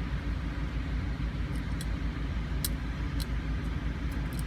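A steady low motor hum, like an idling engine, runs under a few faint, sharp clicks as a steel hand scaler scrapes tartar from a dog's teeth.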